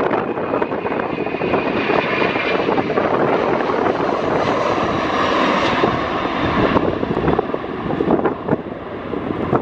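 Airbus A300 freighter's twin jet engines at takeoff thrust during the takeoff roll and lift-off. It is a loud, steady jet noise, with a high whining tone from about two seconds in to about seven seconds, after which the sound eases slightly as the plane climbs away.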